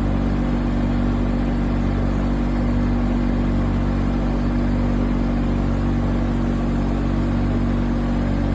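Backhoe loader's diesel engine running steadily at an even speed, with no revving or change in pitch.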